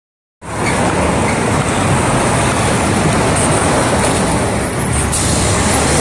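Busy road traffic: cars, vans and trucks passing with a steady low engine rumble, starting abruptly about half a second in.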